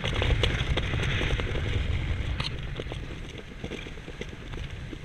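Wind rushing and buffeting over the microphone during a parachute descent, with a rapid crackling flutter through it; it eases a little after about three seconds.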